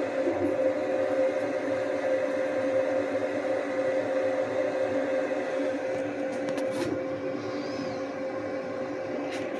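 CNC diode laser engraver running while it cuts: a steady hum of its fans and motors, with a few light clicks in the second half.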